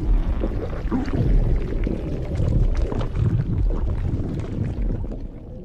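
Stomach gurgling and churning digestion sounds: deep, irregular, watery rumbles and squelches, fading out near the end.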